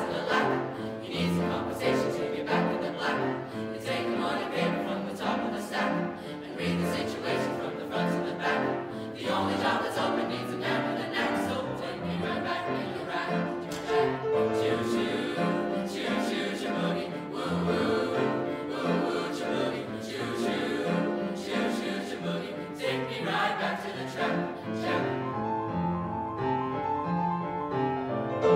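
Junior high school choir singing an upbeat boogie-style number with piano accompaniment. About three seconds before the end the voices stop and the piano plays on alone.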